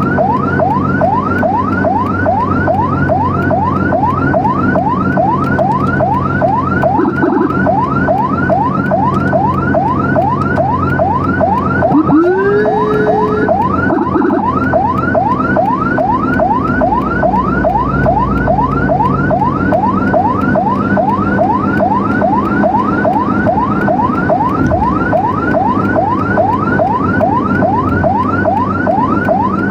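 Emergency vehicle siren in a fast yelp, rising sweeps repeating about three times a second, over engine and road noise from the moving convoy. About twelve seconds in, a second, lower siren tone winds up, holds for a second or two and cuts off.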